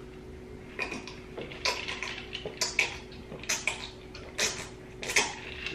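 People gulping an iced drink from glasses: a run of short, irregular swallowing and slurping sounds that starts about a second in.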